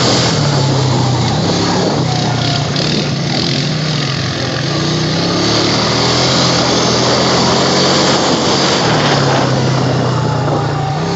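Honda Rancher ATV engine running as it rides along a dirt trail, its note rising and falling with the throttle, over a steady rushing noise of riding.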